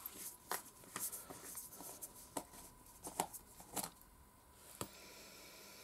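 Faint scattered clicks and light rustles of a cream container being handled and opened by hand.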